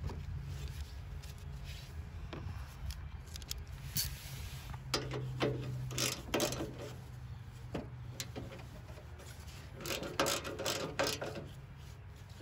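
Socket ratchet wrench clicking in several short bursts as a bolt on a metal bracket is tightened, the busiest clicking about ten seconds in.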